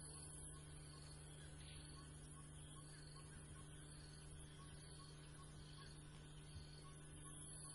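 Near silence: faint ambience with a steady low hum and a soft high chirp repeating about twice a second.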